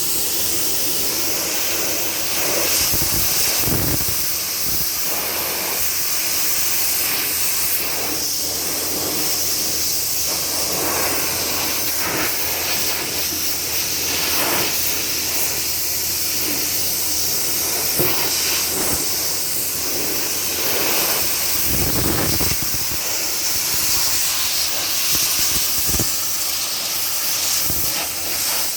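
Pressure washer spraying a steady high-pitched hiss of water against the body of a 1947 Chevy truck, blasting off mildew, with a steady low hum beneath and brief surges as the jet moves over the panels.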